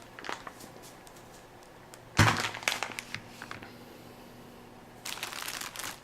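Meal-kit box packaging being handled: a sharp thump about two seconds in as something is set down or knocked, scattered small clicks, then a short stretch of crinkling near the end.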